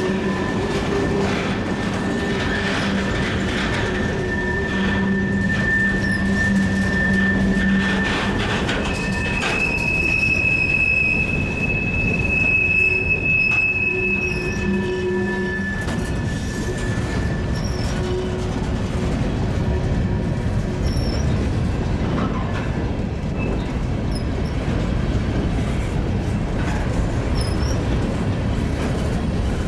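Cars of a long CN freight train (covered hoppers and tank cars) rolling past with a steady rumble. The wheels squeal in long held pitches that change and fade out about halfway through.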